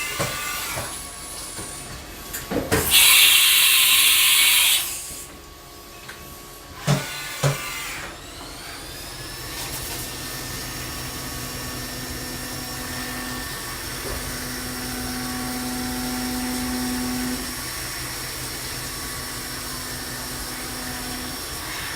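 1996 Haas VF-3 CNC vertical mill at work: a loud hiss of air for about two seconds, then two clunks. After that the spindle spins up with a rising whine and runs steadily, with a lower hum that strengthens and eases.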